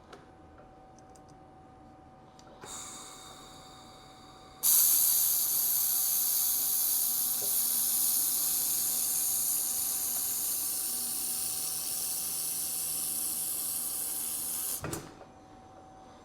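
Handheld laser welder with wire feed running a bead on a thick 304L stainless steel endcap: a softer hiss starts about three seconds in, then a loud steady hiss for about ten seconds that cuts off near the end with a short low thump.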